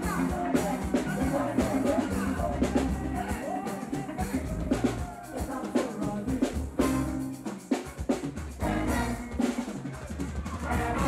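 Live band music: a drum kit and hand drums keep a driving beat under keyboard and bass in an instrumental passage, without singing.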